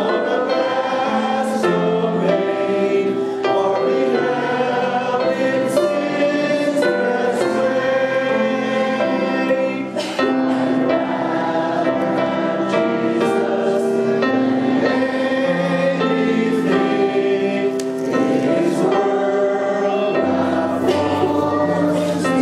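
A congregation singing a hymn together in parts, with a man's voice leading at the pulpit microphone; notes held steadily in harmony.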